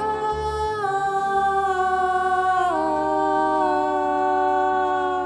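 Two women's voices singing one long held note in harmony, stepping down in pitch twice, about a second in and again near three seconds, and fading out right at the end.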